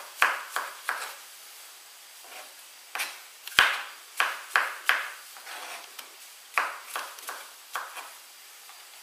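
Kitchen knife slicing button mushrooms on a plastic cutting board: the blade knocks on the board in irregular clusters of sharp taps, the loudest about three and a half seconds in, with short pauses between runs of cuts.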